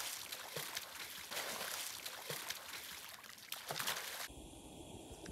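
Water splashing and pouring as a man bathes in an open pool in a frozen stream, scooping water over himself with his hands. The sound cuts off about four seconds in.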